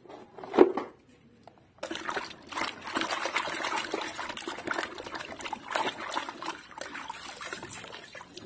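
Water splashing and sloshing as a hand scrubs and swishes a small plastic toy bus through a basin of foamy soapy water, continuous from about two seconds in. Before it, a single sharp knock.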